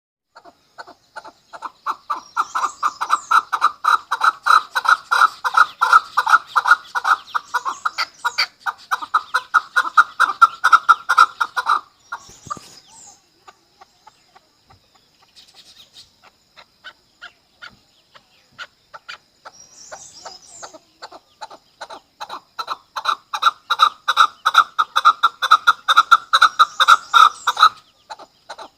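Chukar partridge calling: a rapid run of repeated chuk notes that builds in loudness, breaks off about twelve seconds in, goes on as sparse quieter notes, then swells into a second long run from about twenty seconds in.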